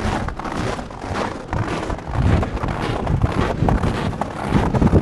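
Wind buffeting an action camera's microphone: a loud, rough noise that surges and dips unevenly.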